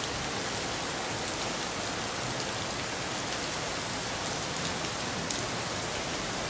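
Rain falling steadily onto a flooded street: an even hiss with a few sharper drop ticks.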